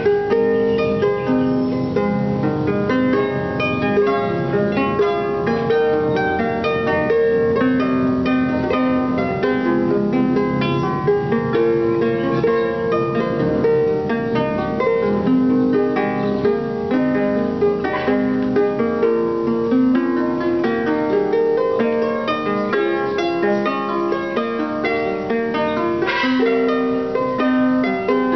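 Wooden harp played by hand: a steady stream of quick plucked notes in a running melody, with lower notes sounding underneath.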